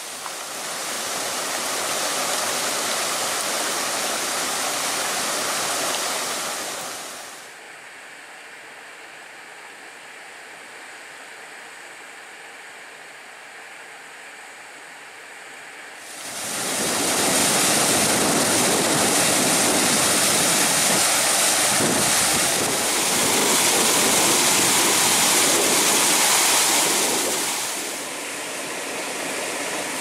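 Typhoon wind and rain: a steady rushing noise that drops quieter for several seconds, comes back louder about halfway through, and eases a little near the end.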